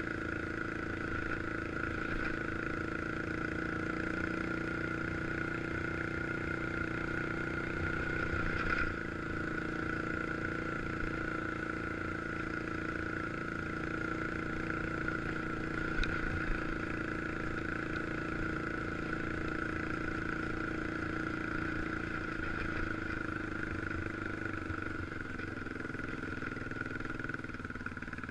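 A 1986 Honda FourTrax 350 ATV's single-cylinder four-stroke engine running steadily at cruising speed, with a steady whine over it. A short knock sounds about sixteen seconds in.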